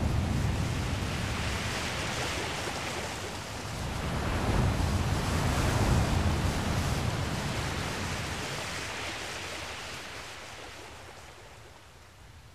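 Shallow sea waves washing in, with wind rumbling on the microphone; the noise swells twice and then fades away over the last few seconds.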